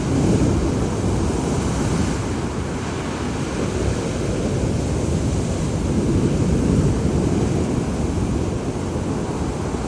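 Big storm waves surging and breaking in a steady roar, with wind buffeting the microphone.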